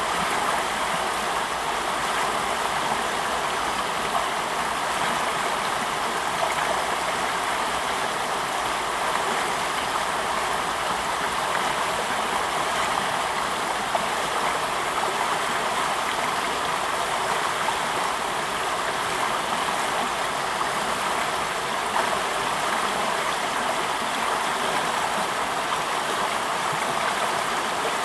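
Fast-flowing stream rushing steadily over rocks, an even unbroken wash of water noise.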